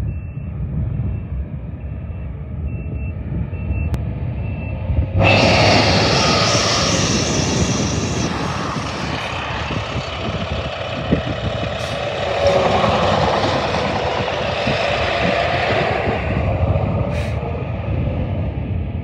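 Backup alarm of a 2011 International DuraStar box truck beeping steadily over the low running of its diesel engine. About five seconds in the beeping stops and a sudden, louder rush of engine and road noise comes in as the truck moves close by, easing off near the end.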